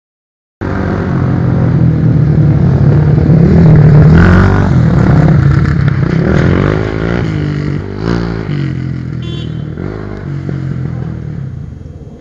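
Kawasaki KLX250 and KLX300 single-cylinder four-stroke trail bikes ridden hard, the engines revving up and down. About eight seconds in there is a short clatter, and after it the engines run lower and fade as both bikes go down.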